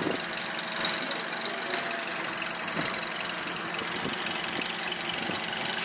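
Honda BF6 four-stroke outboard motor idling steadily in a test barrel of water.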